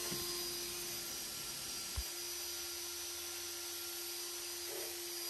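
Cordless drill spinning a rotary cleaning brush against a motorcycle engine's crankcase casing: a steady motor whine with the brush scrubbing the metal. One light knock about two seconds in.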